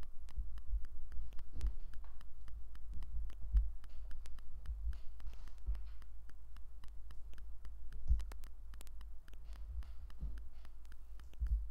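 Lego plastic pieces being handled and pressed together: many light, irregular clicks over low thumps of hands working on the table.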